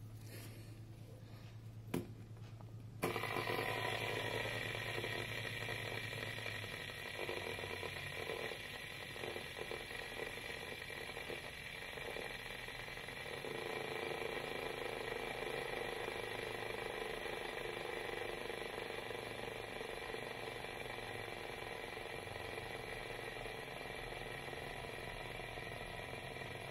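Plastic fidget spinner whirring steadily on its bearing. There is a click about two seconds in. About three seconds in the whir turns suddenly louder and stays steady while the spinner spins on a wooden table.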